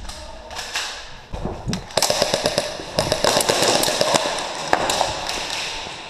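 Airsoft electric rifle firing rapid bursts of BBs, a fast run of sharp clicks over a steady motor whine, starting about two seconds in and stopping around five seconds.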